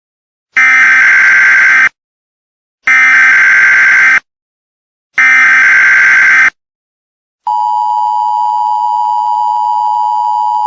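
Emergency Alert System tones: three short bursts of screeching digital header data, about a second apart, then the steady two-tone EAS attention signal, a harsh dual tone just under 1 kHz, begins. This sequence marks the start of an emergency alert message.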